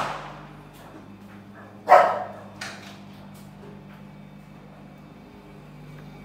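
Two loud sudden bangs about two seconds apart, the second louder, each dying away over about half a second; they were taken on the spot for gunshots.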